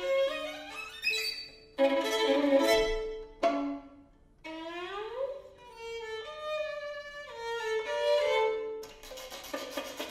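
String quartet of two violins, viola and cello playing contemporary classical music in abrupt, contrasting blocks. A loud, dense flurry of notes comes about two seconds in and breaks off, then after a short gap the strings slide upward and hold notes that change pitch in steps, before a dense texture returns near the end.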